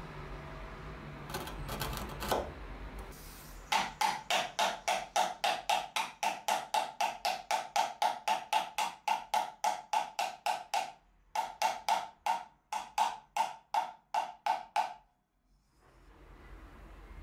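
A small brass-and-wood hammer tapping on a hardwood dovetail joint in a steady run of about four knocks a second. Each knock rings with a clear pitch, and there is a short break about eleven seconds in. A few scattered softer knocks come before the run starts.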